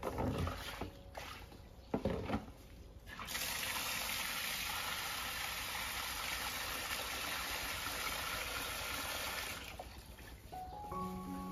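A few splashes of water in a plastic basin, then an outdoor tap running steadily into the basin for about six seconds before easing off. Background music comes in near the end.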